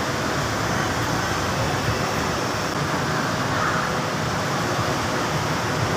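Steady rushing background noise with no distinct events, at an even level.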